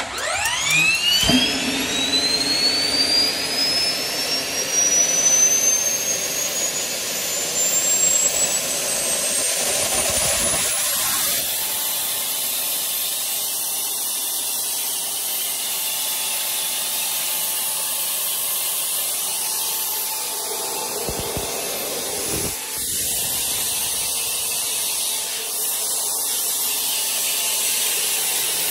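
Diesel-fuelled Garrett GTP30 gas-turbine auxiliary power unit starting. Its whine climbs steeply in pitch over about the first eleven seconds as the turbine spools up, then it runs at a steady high whine over rushing exhaust noise.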